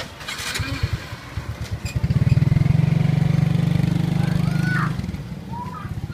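A motorbike engine running close by: it builds over the first two seconds, stays loud and steady for about three seconds, then drops away about five seconds in.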